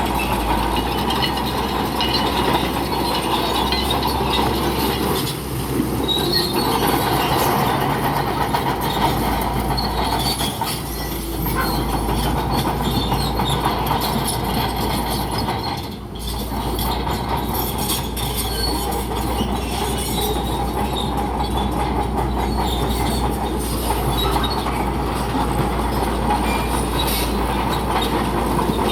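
Bulldozer working: diesel engine running under load while its steel crawler tracks squeal and clank. The noise dips briefly three times.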